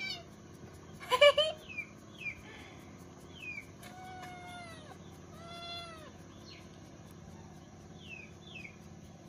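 A small kitten meowing several times. The loudest meow comes about a second in, and two long rising-then-falling meows come around four and six seconds in. Short, high bird chirps sound between them.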